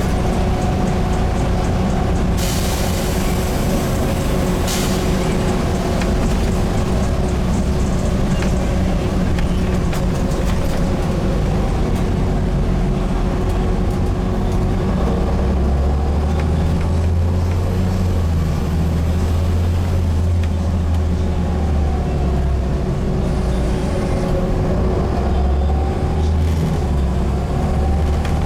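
Volvo B7TL bus's seven-litre six-cylinder diesel engine running under way, with a steady whine, heard from on board. About two seconds in, a hiss of air lasts a couple of seconds. About halfway through, the automatic gearbox kicks down and the engine note grows heavier and louder for several seconds.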